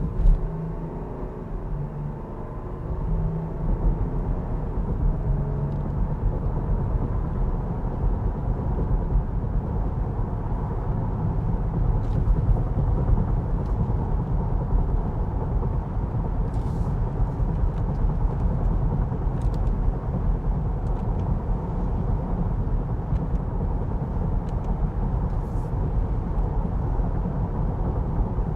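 Tyre and road noise heard from inside the cabin of a 2023 Jeep Grand Cherokee L at highway speed: a steady low rumble that grows louder and coarser a few seconds in, with a single thump just after the start.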